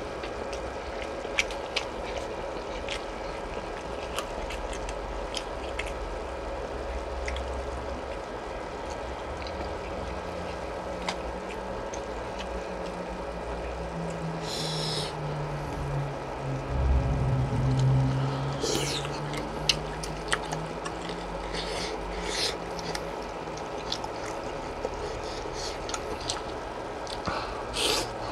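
Eating fish cake soup: brief slurps of broth and chewing, with scattered light clicks of utensils, over a steady hum.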